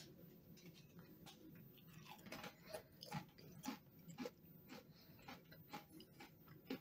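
A person chewing a crisp Lay's Bacon Wrapped Jalapeño Popper potato chip: a quiet run of sharp, irregular crunches starting about two seconds in.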